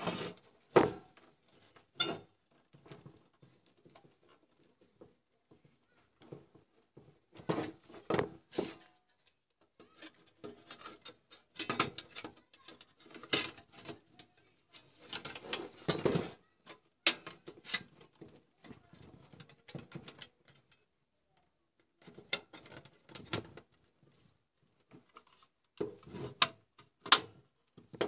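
Scattered clicks, knocks and scraping from handling a computer power supply: the wire bundle being pushed inside and the sheet-steel cover being fitted on, in irregular bursts with quiet gaps between.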